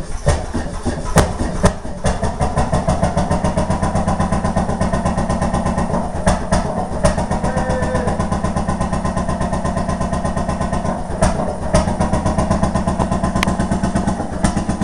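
Antique Ellis vertical two-cycle stationary engine running just after being started by hand, firing in a rapid, even beat with a few louder sharp cracks mixed in.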